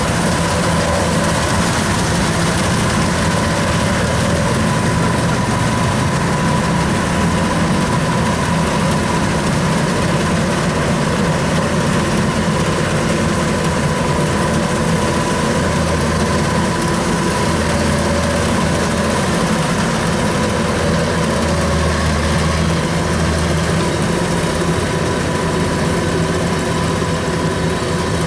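Kubota DC93 rice combine harvester running steadily: a continuous diesel engine drone with a steady high whine over it.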